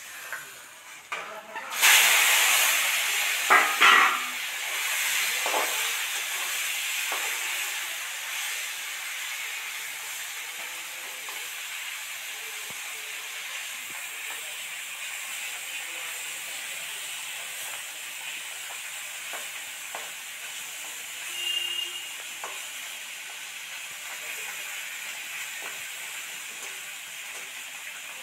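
Masala-coated fish pieces going into hot oil in a steel kadhai: a loud sizzle bursts out about two seconds in and settles into steady frying. A few knocks of a spatula against the pan follow in the next few seconds.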